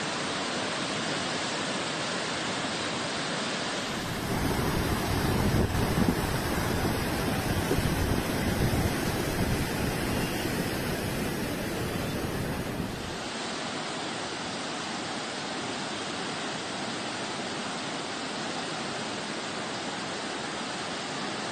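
A river in flood: fast, turbulent muddy water making a steady dense rushing noise. Between about 4 and 13 seconds in it grows louder and deeper, then drops back to a lighter, even rush.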